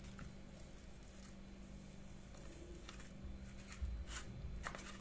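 Faint scattered taps and rustles of salt sprinkled over whole fish in a metal baking tray, then the wet fish being handled, with a low thud about four seconds in. A steady low hum runs under it.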